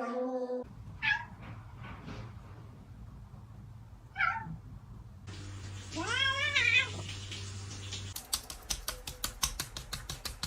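Domestic cats meowing: two short meows, then a longer meow that rises and falls. Near the end comes a rapid, even run of sharp clicks or taps, about seven a second.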